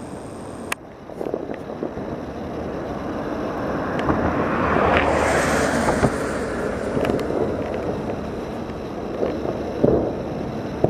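Distant fireworks show: a continuous rumble of bursts and crackle that swells about halfway through, with a few sharp reports, mixed with wind on the microphone.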